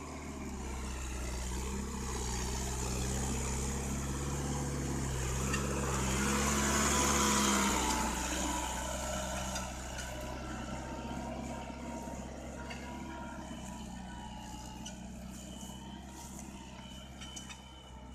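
Tractor engine running steadily, growing louder to a peak about seven seconds in, then slowly fading away.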